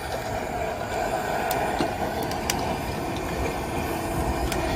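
A freshly lit campfire burning, a steady rushing noise with a few sharp crackles.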